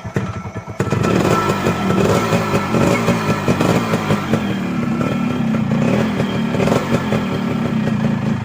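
Yamaha RX100's 98 cc two-stroke single-cylinder engine catching at once from the self-start button, with no starter-motor whine, then running with a rapid two-stroke beat. It gets louder about a second in and runs steadily after that.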